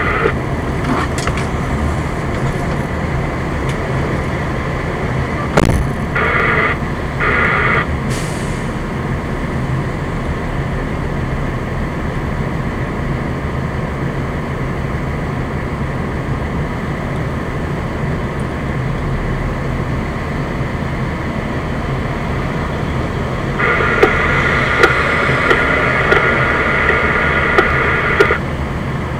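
Fire engine's diesel engine idling steadily, heard from inside the cab. A higher steady buzzing tone cuts in twice briefly about six seconds in, then again for about five seconds near the end.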